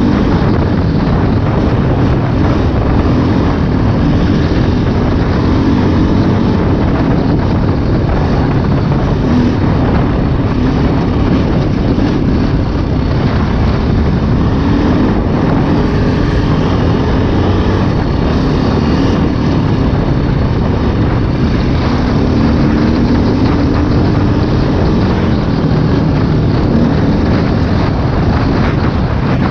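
2008 KTM 530 EXC's single-cylinder four-stroke engine running under way on a dirt road. Its note wavers up and down several times as the throttle changes.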